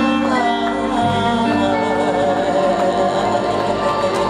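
Live band playing amplified, with electric guitars, keyboard and drums under a woman singing lead, her held notes wavering with vibrato.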